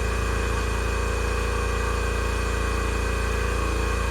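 A steady machine hum from a running motor, with a fine, even pulsing and no change in pitch or level.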